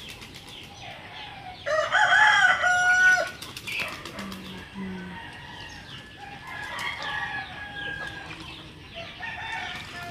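A rooster crowing once, a loud cock-a-doodle-doo starting about two seconds in and lasting over a second, over faint bird chirps.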